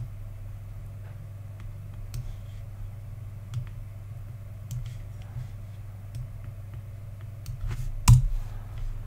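Light, scattered clicks of a computer mouse and keyboard, a few seconds apart, with a louder cluster of clicks about eight seconds in, over a steady low hum.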